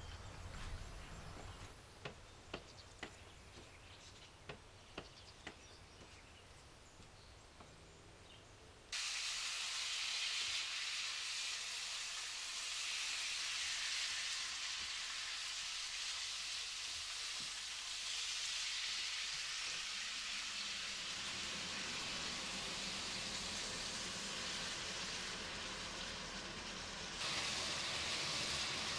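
Pieces of meat frying and being stirred in a stainless steel frying pan: a steady sizzling hiss that starts suddenly about nine seconds in. Before that, a quiet stretch with a few faint knocks.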